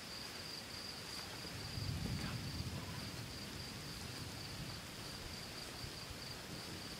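Distant thunder: a low rumble that swells about two seconds in and fades away, over a steady high insect chorus.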